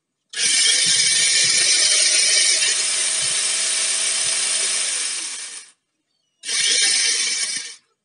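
Electric angle grinder fitted with a 12-inch chainsaw attachment, run free with no load in two bursts: about five seconds, then a second one of about a second and a half. Each starts suddenly with a steady high motor whine and chain rattle, and winds down when switched off.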